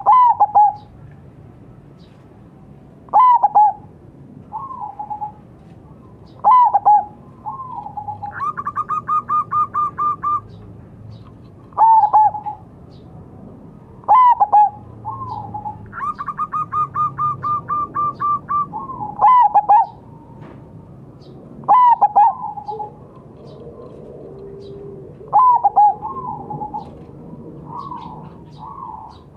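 Zebra dove (perkutut) cooing. Loud calls come every few seconds, each a sharp falling note followed by a few softer coos. Twice there is a fast run of repeated notes lasting about two seconds.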